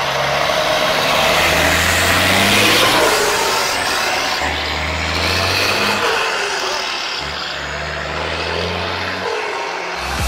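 Diesel engine of a DAF XF truck tractor unit, running under light throttle as the truck drives slowly past and away.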